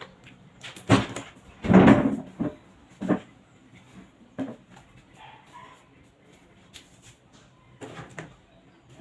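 Clicks and knocks of a charger plug being pushed into a newly wired wall power outlet, with a louder half-second sound about two seconds in.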